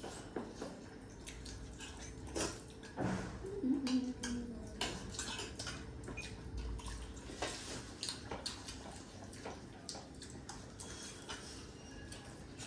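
Eating at a table: irregular clicks and clinks of cutlery against dishes, with soft mouth and chewing noises.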